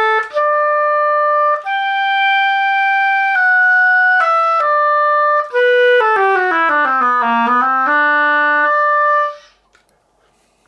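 Oboe played solo on a freshly made, CNC-profiled cane reed being tried out: a few held notes, then a quick run stepping down to the bottom of the instrument's range and back up. The playing stops near the end. The reed plays, though it may need a little touch-up.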